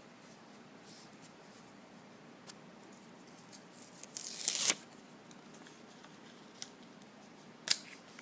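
Hands handling small objects: a brief rustling scrape about four seconds in and a single sharp click near the end, with a few faint ticks.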